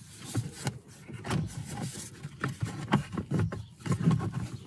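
Hard plastic dashboard trim panel being tugged and worked loose from its clips, giving a scattered series of sharp clicks and knocks with rubbing of plastic on plastic.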